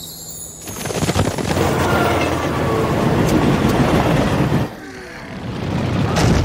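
A train rushing past, a loud rumbling clatter that starts about a second in, dips briefly near the end, then builds again.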